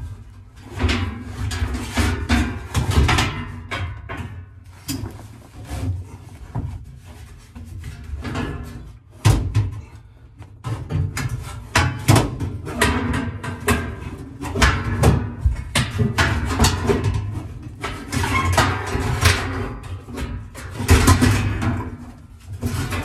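A sheet-metal package tray knocking and clanking at irregular intervals as it is forced into place around a roll bar, with background music underneath.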